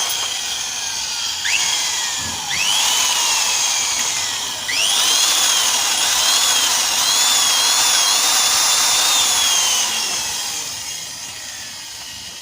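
Electric drill drilling out the remains of a broken bolt from an aluminium cylinder head. The motor spins up with a rising whine several times in the first few seconds, then runs steadily under load with a slightly wavering whine from about five seconds in, and winds down near the end.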